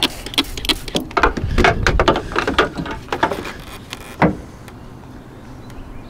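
Trigger spray bottle of soapy water squirted in quick repeated strokes onto an A/C compressor for a soap-bubble leak check, with one sharper click a little after four seconds, then only a low steady background noise.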